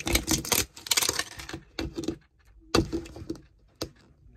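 Plastic wrapping crinkling and crackling as it is picked and peeled off a plastic Mini Brands capsule ball: a dense run of small crackles for about a second and a half, then a pause and a few more crackles.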